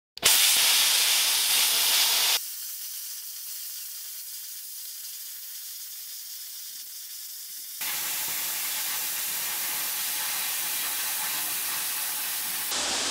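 Hypertherm plasma cutter torch cutting a circle in steel plate on a radius guide: a steady, bright hiss of air and arc. It drops noticeably quieter a couple of seconds in and comes back up around eight seconds.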